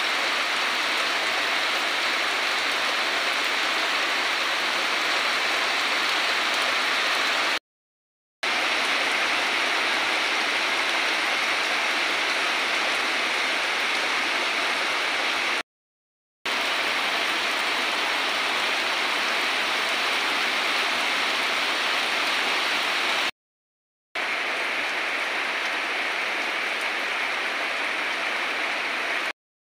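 Heavy rain falling steadily on banana leaves and wet garden ground, an even hiss. It is broken by short gaps of dead silence about 8, 16 and 24 seconds in and again near the end.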